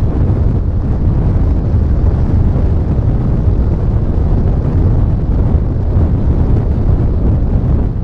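Wind rushing over the onboard camera's microphone on a flying RC sailplane: a loud, steady, low rumble of airflow.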